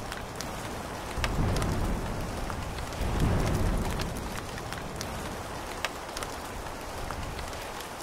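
Steady rain falling and pattering on a surface, with many small drop ticks and two low rumbles, about a second in and about three seconds in.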